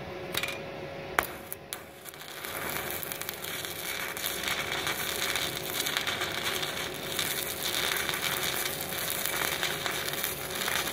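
Stick (MMA) welding arc from a 2 mm electrode on thin steel plate, crackling steadily from about two seconds in after a few sharp clicks. The arc holds on a 900-watt household supply without tripping the breaker.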